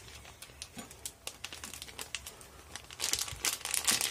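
Plastic pouch crinkling in the hands as small mozzarella balls are squeezed out through a small opening; the crinkling grows louder and denser about three seconds in.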